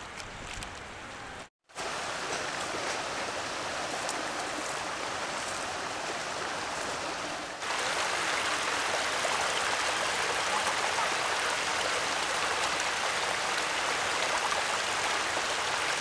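Steady rushing of running water, like a small stream. It cuts out completely for a moment about a second and a half in, and is louder from about halfway through.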